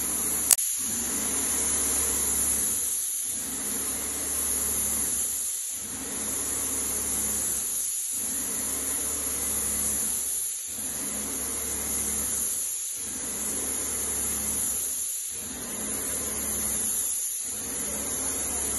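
Wagner Control Pro 250M electric paint sprayer running and spraying with a steady hiss, dipping briefly about every two and a half seconds. A sharp click about half a second in.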